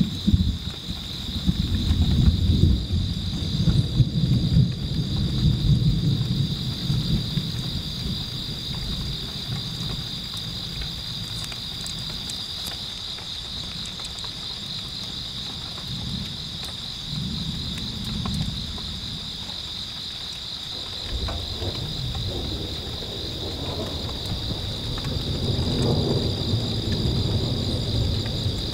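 Thunder rumbling in long, low rolls, heaviest in the first several seconds and again toward the end, over a steady high-pitched insect chorus that trills without a break.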